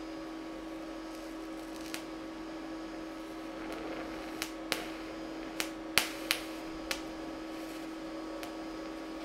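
TIG welding arc on steel running with a steady low hum and hiss while filler rod is fed in, broken by about eight sharp pops and crackles, most of them bunched between about four and seven seconds in.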